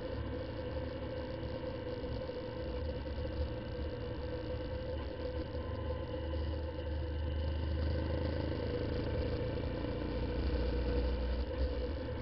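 Honda CBF125's single-cylinder four-stroke engine running at a steady cruise, heard from on the bike, over a low rumble.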